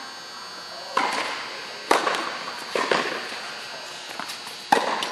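Tennis ball being struck by racquets and bouncing on an indoor hard court during a rally: four sharp pops with irregular gaps, each ringing on in the echo of the hall.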